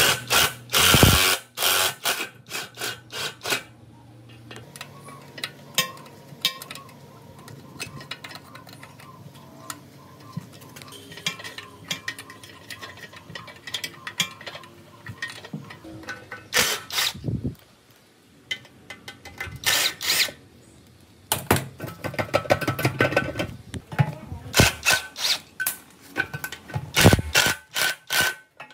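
Hand tools and metal parts of an old generator engine clattering as it is worked on: irregular runs of sharp clicks and knocks, busiest near the start and over the last third, with a quieter stretch in the middle.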